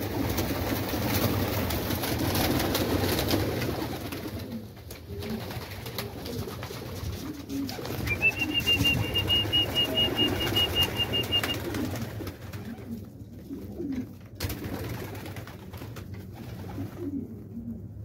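Domestic pigeons cooing, with a flurry of wing flapping in the first few seconds as birds take off and land. A thin steady high tone sounds for about three seconds midway.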